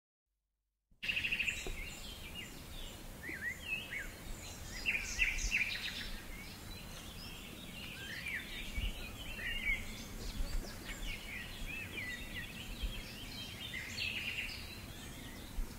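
Small birds chirping and singing in short, quick notes that rise and fall, over a faint steady low background noise; the birdsong begins about a second in.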